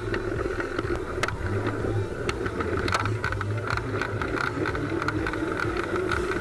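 Giant Glory downhill bike being ridden: steady tyre and wind noise with scattered short clicks and rattles from the bike.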